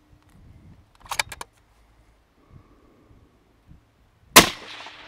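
A single rifle shot about four and a half seconds in, its report trailing off in an echo; it ends a timed shooting stage. A few light clicks come about a second in.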